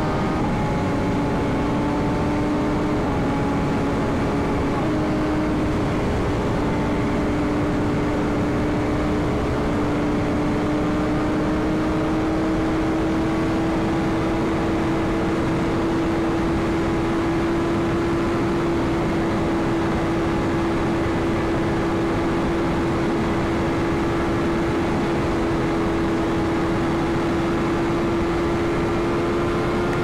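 BMW S1000RR inline-four engine running at a steady highway cruise, its note dipping slightly a few seconds in and then creeping slowly higher as speed builds. Heard from the rider's helmet over a constant rush of wind.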